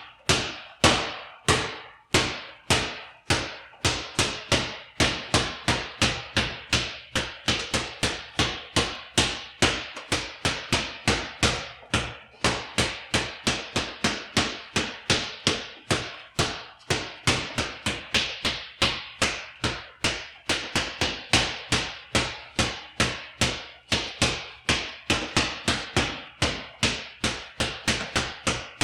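A basketball being dribbled: a run of sharp bounces on a hard floor, at first about one and a half a second, then quickening to a fast steady dribble of about three a second.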